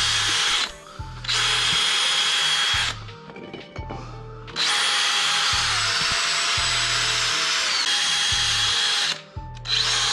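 Cordless drill spinning a 3M Roloc bristle disc against the engine casting's sealing surface to scrub it clean. It runs in bursts with a steady high whine: two short runs, a long one of about four seconds in the middle, and another starting near the end.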